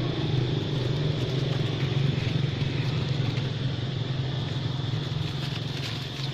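A motor running steadily: a continuous low hum with a steady high whine above it.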